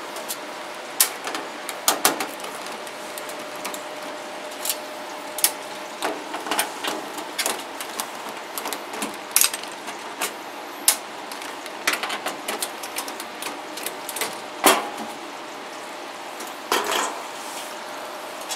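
Scattered clicks and clanks of a furnace's sheet-metal lower access door being handled and lifted off. The loudest knock comes about three-quarters of the way through.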